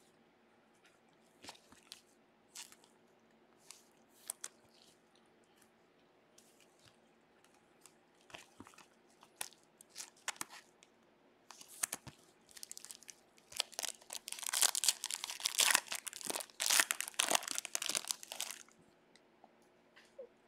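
Plastic wrapper of a baseball card pack crinkling and tearing as gloved hands rip it open. Scattered soft rustles and clicks come first, then a long stretch of dense crinkling in the second half.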